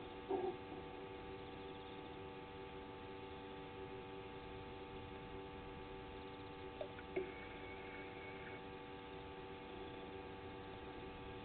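Steady electrical hum of several fixed tones from the live camera's audio system, with a couple of faint brief sounds about a second in and around seven seconds in.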